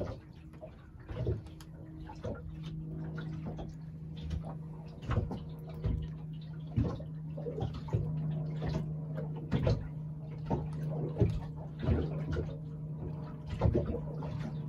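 Small waves slapping irregularly against the hull of a small fishing boat, over a steady low engine hum.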